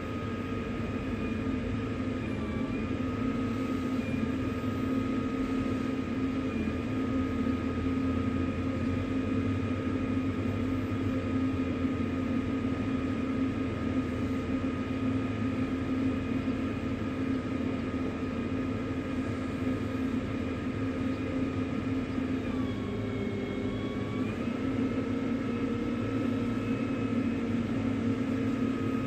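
A motor running with a steady hum, its pitch sagging briefly about two seconds in and again for a couple of seconds near the end.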